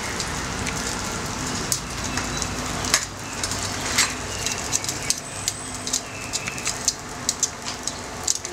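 Hot oil sizzling steadily around a patty of shredded batter shallow-frying in a nonstick pan, with scattered sharp crackles and pops. A couple of louder pops come about three and four seconds in.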